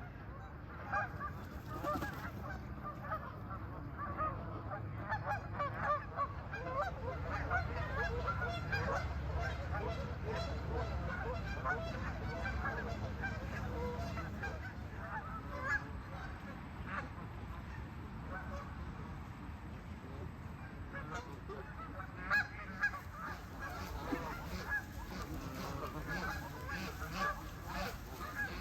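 A flock of geese honking, with many short calls overlapping one another throughout.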